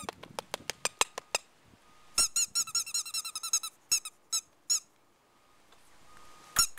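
Young yellow Labrador Retriever puppy squeaking: short, high-pitched squeaks in quick runs, a burst right at the start, a longer run about two seconds in, a few more just after, and another run near the end.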